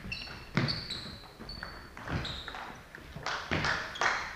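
Sports shoes squeaking briefly on a wooden sports-hall floor, with a few thuds and taps: one about half a second in, another near the middle, and three close together near the end.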